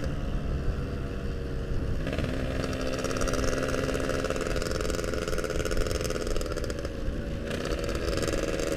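Yamaha RX-King's two-stroke single-cylinder engine running under way, its pitch stepping up about two seconds in and then holding steady.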